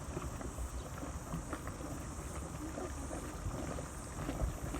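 A small mud volcano bubbling and plopping in quick, irregular low pops, with wind buffeting the microphone.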